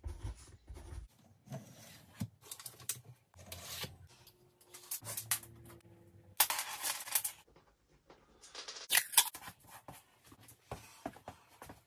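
Scattered handling noises of measuring up: a steel tape measure drawn out and let back, with scrapes, clicks and short tearing and rustling sounds, the longest about six and a half seconds in.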